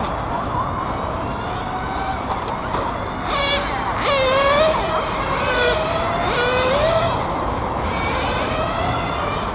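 Axial 1/10-scale RC rock crawler's electric motor and drivetrain whining as it climbs over rocks, the pitch rising and falling with the throttle and loudest in the middle stretch. Steady outdoor background noise underneath.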